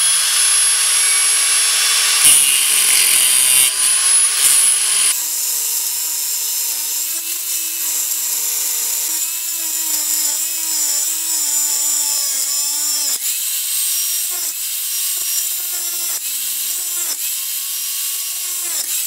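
A 4.5-inch angle grinder's disc cutting through a seized steel tie rod. The motor runs at a steady high whine for the first few seconds, then its pitch sags and wavers as the disc bites into the metal, with a few brief breaks in the cut.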